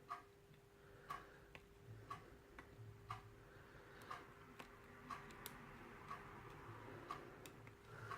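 Faint, regular ticking, about once a second, over a faint steady hum.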